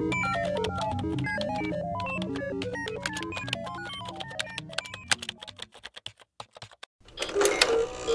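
Electronic music: a rapid run of short, stepping synthesizer bleeps over a steady low drone, fading out about five seconds in. After a short gap with a few clicks, new electronic music starts about seven seconds in.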